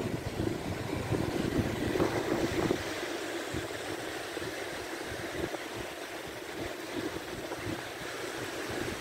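Wind buffeting the microphone over the steady wash of small surf breaking on a beach; the low buffeting eases after about three seconds.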